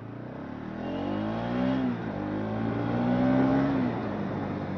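Bajaj Pulsar NS200's single-cylinder engine revving up twice, its pitch climbing steadily and then dropping back each time.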